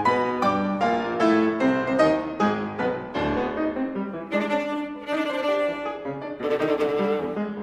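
Viola and piano playing classical chamber music, from the Allegretto movement of a 20th-century viola sonata. Quick short notes come in the first few seconds, then longer held viola notes over piano chords.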